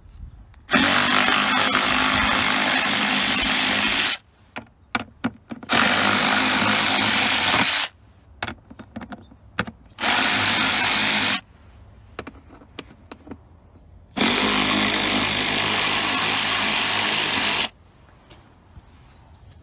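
A power drill/driver runs four times in short, steady bursts of a few seconds each, stopping sharply each time, as it backs out the bolts holding the cover over the ECM and relay box. Light clicks and knocks of handling come between the bursts.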